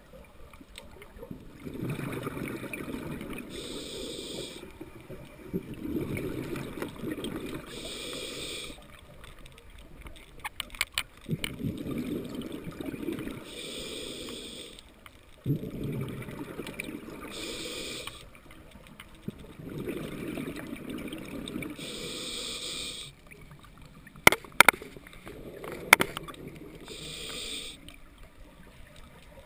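Open-circuit scuba regulator breathing underwater: slow, even breath cycles, each a short hissing inhale through the regulator followed by a longer, low bubbling rush of exhaled air. A few sharp clicks come near the end.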